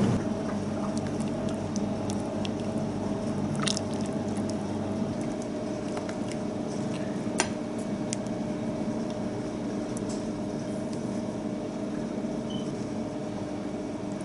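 Chopsticks and a ladle tapping and clinking against a pot and a ceramic plate as simmered mackerel pieces are lifted out and plated, a few scattered clinks with one sharper one about halfway through, over a steady kitchen hum.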